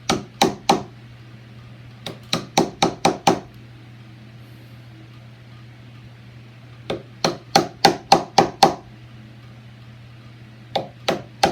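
Wood chisel lightly tapped with a rubber- and nylon-tipped mallet, scoring the outline of a latch mortise into the edge of a fiberboard door. The taps come in quick runs of about four to eight, with short pauses between.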